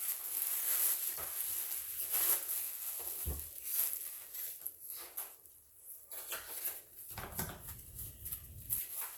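Comic books and their packaging being handled: irregular paper and plastic rustling with light taps and knocks, and a low rumbling stretch near the end.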